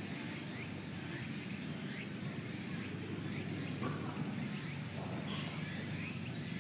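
Outdoor background noise: a steady low rumble with faint, short bird chirps every second or so.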